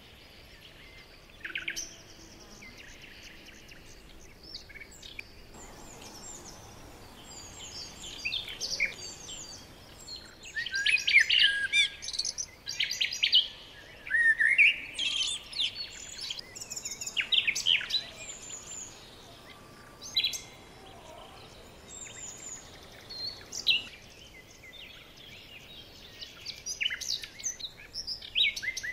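Songbirds chirping and singing in bursts of quick high chirps and trills with short pauses between. The busiest stretch is around the middle and includes a fast upward-sweeping phrase.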